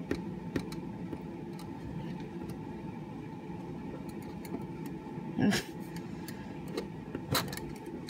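Ballpoint pen scratching on paper and the light metallic clinks of a handcuff chain as the handcuffed hands draw, over a steady low hum. A few sharp clicks stand out, the loudest about halfway through and near the end.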